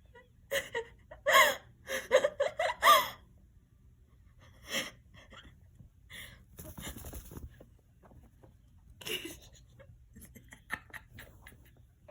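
A quick run of short, high-pitched squealing calls in the first three seconds, then a stretch of rustling and light scraping with a few scattered ticks.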